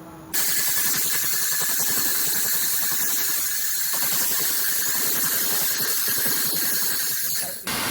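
Multifunction laser machine working on metal: a loud, steady hiss with fine crackle that starts abruptly about a third of a second in. It breaks off briefly near the end, then starts again.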